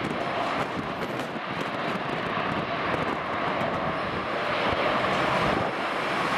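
A Boeing 787-9's Rolls-Royce Trent 1000 turbofans running during landing rollout with thrust reversers deployed, a steady jet rush that holds without any sharp events.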